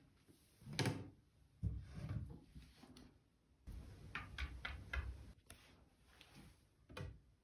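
Scattered knocks and clicks around a wooden bathroom cabinet, with a run of quick clicks midway and a last sharp knock near the end as its door is opened.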